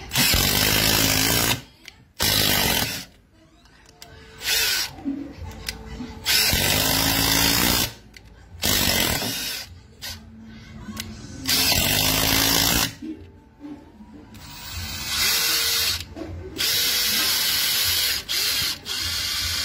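Makita 18V brushless cordless impact driver driving screws into a wooden beam in repeated runs of about one to two seconds with short pauses between, its pitch rising briefly as some runs start.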